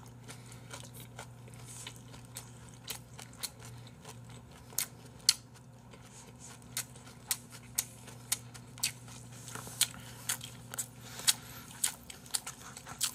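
Close-up eating sounds of jokbal (braised pig's trotters): chewing with many short, sharp mouth clicks and smacks, scattered unevenly, over a faint steady hum.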